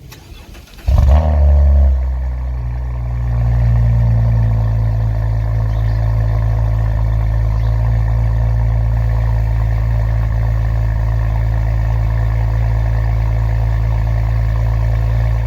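Cadillac ATS-V's twin-turbo V6 starting through a modified exhaust: it catches about a second in with a loud flare of revs, dips, then settles into a steady, loud idle until it cuts off at the end.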